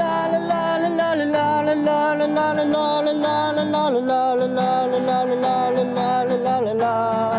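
A slow, wordless melody of long held notes over a strummed guitar. This is a newly written song played before its lyrics exist. The melody changes note about a second in, again about four seconds in, and near the end.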